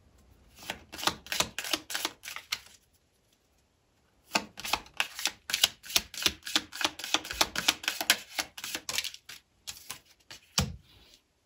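Rapid, even clicking at several clicks a second, in three runs: about two seconds, then after a pause a longer run of about five seconds, then a short burst near the end.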